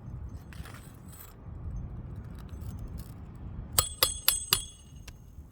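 Low scuffing and handling on asphalt shingles, then four quick metallic strikes, each ringing briefly: a roofing hatchet driving roofing nails into a shingle.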